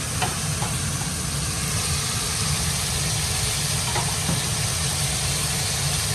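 Curry simmering and sizzling in a pot on a gas stove: a steady low rumble under a broad hiss, with a few faint light clicks as garam masala is added.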